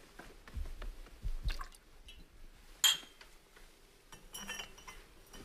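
Faint handling of a drinking glass and a bottle, with small knocks and one sharper tap about three seconds in, as a man sips from the glass.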